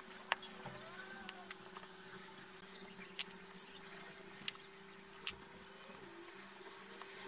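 Scattered sharp clicks and taps of a power-tool battery pack's plastic housing being handled and fitted back together, over a faint steady hum.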